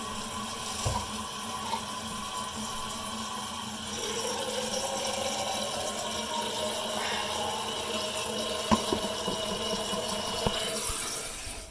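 Eljer toilet tank refilling: water hissing steadily through the Fluidmaster fill valve, with a tone that slowly rises as the tank fills, then cuts off suddenly near the end as the valve shuts.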